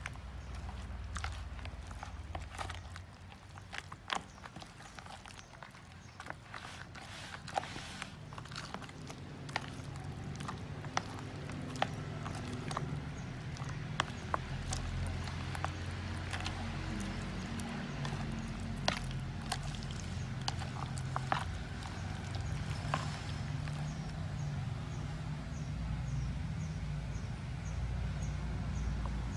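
Raw chicken feet being mixed in a plastic bowl of batter: irregular clicks and clacks as the feet knock together and against the bowl, over a low steady hum.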